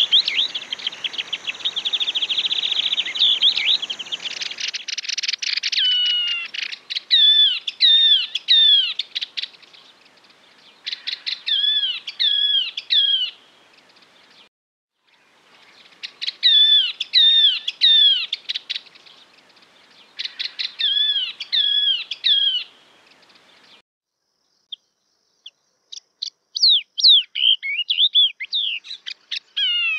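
Yellow-eyed babbler singing: a fast, dense chattering trill for the first few seconds, then bouts of clear whistled phrases of three or four downward-sliding notes repeated with short gaps. The song cuts off suddenly twice, as in an edited recording, and resumes near the end.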